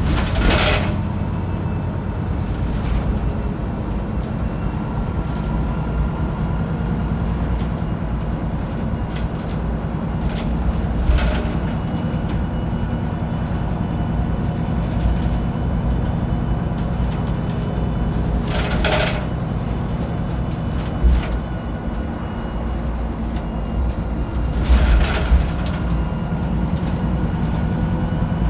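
Wright Pulsar 2 single-deck bus engine running steadily, heard from inside the bus, with four short bursts of hiss spread through it, typical of the air-system sneezes the bus is nicknamed for.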